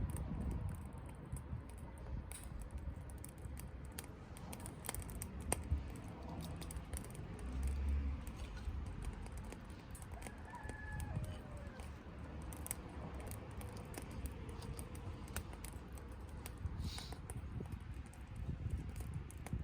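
Conifer wood burning in a small steel wood-burning camp stove, crackling with irregular sharp pops and snaps over a low steady rumble.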